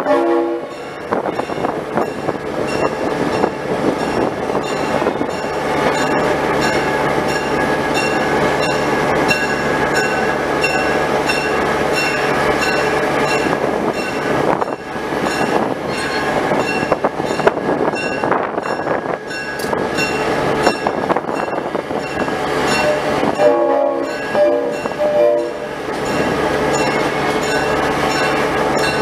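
Diesel locomotive engine running steadily as the locomotive rolls slowly past at close range. Several short tones sound near the end.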